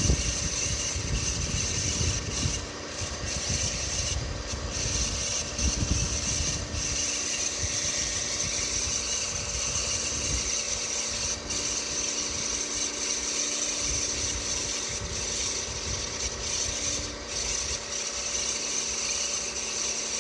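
Mitsubishi Pajero IV's 3.0 V6 engine idling during a cold winter warm-up, with a steady high-pitched extraneous noise over the idle, which the owner says appears only while warming up and goes away near operating temperature. A heavier low rumble sits under it for the first several seconds.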